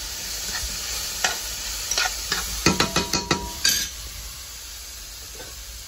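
Sliced cucumber and red onion sizzling in a stainless steel frying pan while a spatula stirs them. There is a cluster of metal clicks and scrapes against the pan about three seconds in, and the sizzle is quieter after about four seconds.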